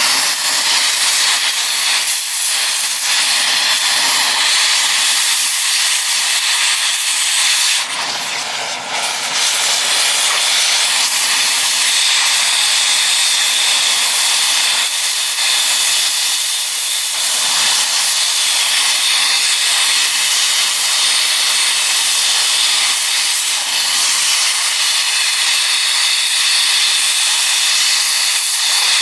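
Cutting torch hissing steadily as it cuts out a press-fit ball joint, with a brief drop about eight seconds in.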